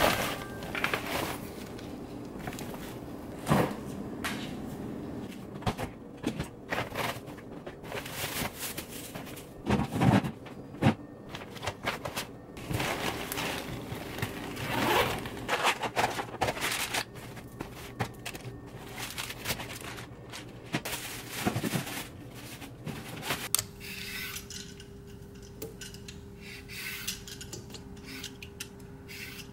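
Groceries being unpacked in a kitchen: bag rustling and scattered knocks and clatter of items set down on a counter. Near the end, lighter repeated scrapes of a vegetable peeler on a carrot over a faint steady hum.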